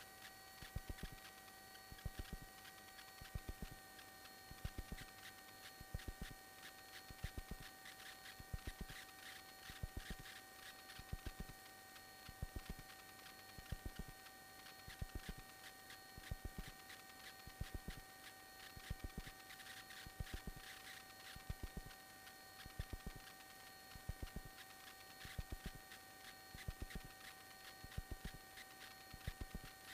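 Faint electrical hum with a few steady high-pitched tones on the cockpit audio feed, broken by soft crackling clicks that come in short clusters about every second and a quarter. It is radio and intercom line noise during a pause in the radio calls; the propeller engine itself is barely heard.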